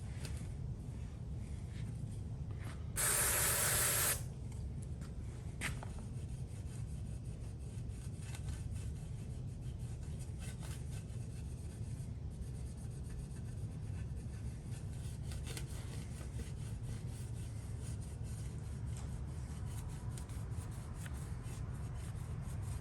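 A steady low hum with light rubbing and scattered clicks of handling. About three seconds in, a loud hiss lasts a little over a second.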